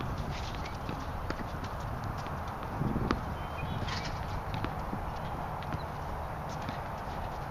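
Tennis balls struck by rackets and bouncing on a hard court during a rally: scattered sharp knocks, the loudest about three seconds in, over a steady low rumble.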